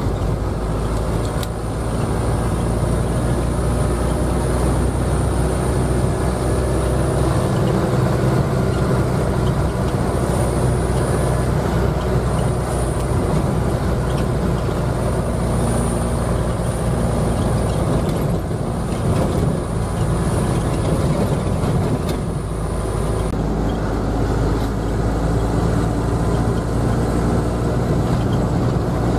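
Diesel minibus engine running and road noise at driving speed, heard from inside the cabin: a steady low rumble.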